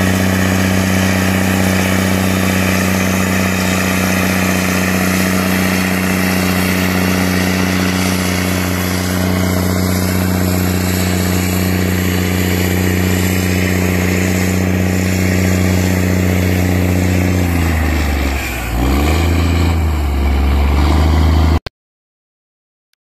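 Diesel tractor engine running steadily at constant revs; near the end the revs dip and climb again a couple of times, then the sound cuts off abruptly.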